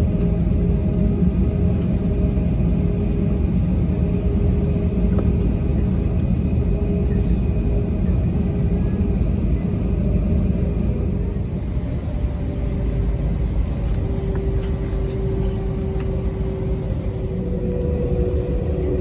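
Steady low rumble of an Airbus A320-232's cabin on the ground before takeoff, its engines running at idle. A faint hum rides on it and shifts in pitch a little in the second half.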